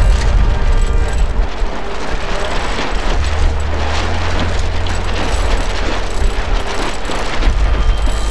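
Wind buffeting the microphone over a steady rush and splash of water along the hull of an Etchells keelboat under sail.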